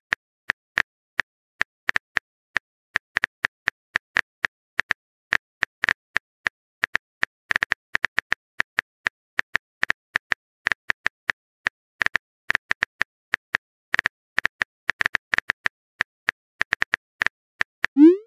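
Keyboard typing sound effect from a texting-story app: a long string of short, crisp key clicks, about four or five a second at an uneven pace, as a message is typed. Near the end a short rising pop sounds as the message is sent.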